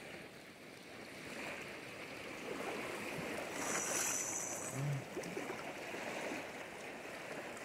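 Sea waves washing up a beach: a steady rushing noise, with a short high-pitched tone about halfway through.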